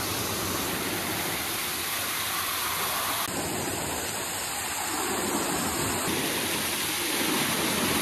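Small waterfall pouring over rocks close by: a steady rush of water.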